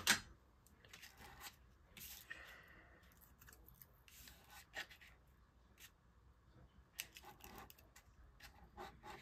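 Faint handling sounds of card-making: scattered clicks and taps with a few short rustles as tape and floss are worked on a paper card.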